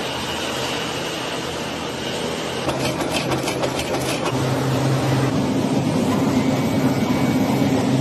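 Match-making factory machinery running: a steady mechanical hum, with a short spell of rapid clattering about three seconds in and the hum shifting to a higher pitch about five seconds in.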